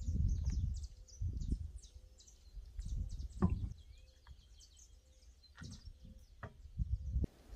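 Small birds chirping repeatedly in the background, over low rumbling bursts and a few sharp metallic clicks as a car's spare wheel is fitted onto the hub and its nuts started by hand.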